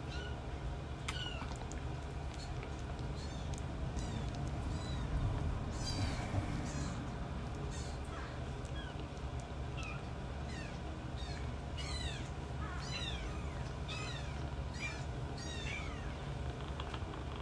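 Very young bottle-fed kittens mewing: repeated short, high-pitched cries that fall in pitch. They are scattered at first and come thick and fast in the second half, over a steady low hum.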